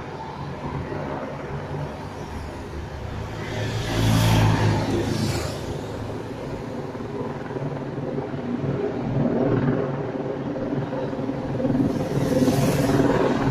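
A convoy of team support cars with bicycles on roof racks and a motorcycle driving past close by, one after another: engines and tyres, with a loud pass about four seconds in and another swell as the motorcycle goes by near the end.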